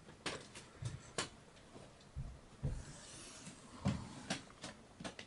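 Soft thuds of footsteps on a boat's wooden cabin floor, mixed with scattered light clicks and knocks.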